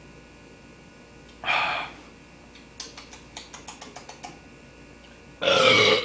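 A man's loud breathy gasps after a long swig of malt liquor from the bottle, one about a second and a half in and a louder one near the end, with a quick run of about ten small clicks in between.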